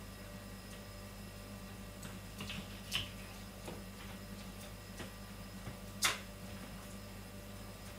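Kitchen knife knocking and clicking against a wooden cutting board while filleting an eel: a few short light knocks, the loudest about six seconds in, over a steady low hum.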